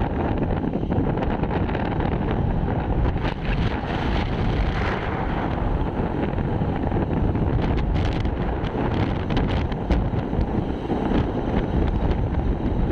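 Wind buffeting the microphone of a phone carried on a moving vehicle: a steady, loud rushing noise with road rumble underneath.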